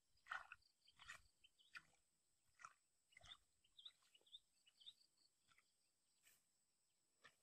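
Near silence, broken by faint, scattered short scrapes and rustles of a thin stick probing a muddy hole in grass. A few faint high chirps come in quick succession about four seconds in.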